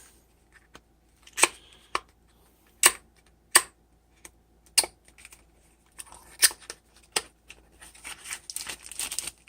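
A knife's retail packaging being opened by hand: a string of sharp separate clicks and snaps, then busier rustling and crinkling of the packaging in the last few seconds.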